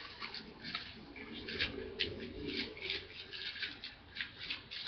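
Soft, irregular crinkling and rustling of the plastic wrappers on sanitary pads as they are handled, a string of short crackles throughout.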